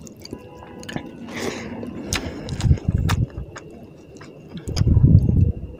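Close-miked eating by hand: wet squishing and sticky clicks of fingers mixing rice with tilapia fish curry, with two loud stretches of low, muffled chewing, one around the middle and one near the end.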